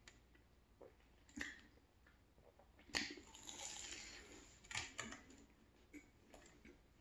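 Close-up eating sounds of a flaky croissant: a crackly crunch of pastry as it is bitten about three seconds in, trailing off as it is chewed, with a few softer crackles and mouth clicks around it.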